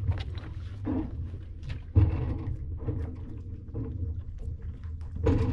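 Wind buffeting the microphone with a low, uneven rumble, and a sudden thump about two seconds in.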